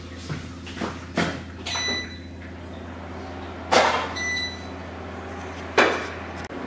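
Kitchen clatter: cookware and cupboard bumps and scrapes, the loudest two near the middle and near the end, over a steady low hum, with two short high beeps in between.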